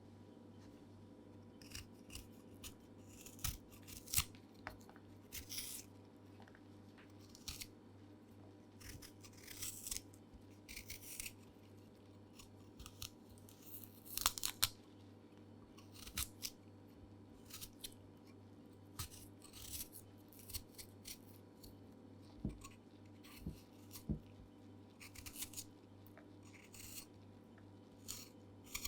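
Kitchen food preparation of ginger and garlic: irregular short scrapes, clicks and rustling swishes of hands and a utensil working the food, over a steady low hum.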